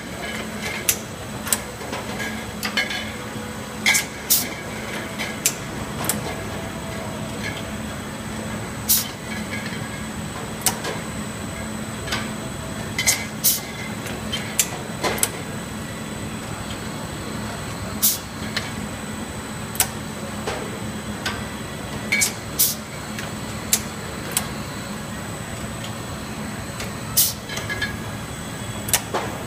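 Automatic chuck bottle-capping machine running with gallon amber glass jugs: a steady motor hum with a faint high whine, and sharp clicks and clanks from the capping mechanism and the glass jugs at irregular intervals, every second or two.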